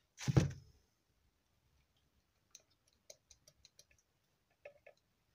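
A brief dull thump, then light scattered metallic clicks of the gears and shaft in a lathe's Norton quick-change gearbox being worked by hand. The shaft, freed of its roll pin, is being coaxed to slide out and does not want to move.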